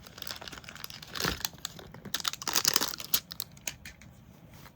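Crinkling and rustling of plastic being handled, in irregular bursts with small clicks. The loudest burst comes between about two and three seconds in, and the sound dies down near the end.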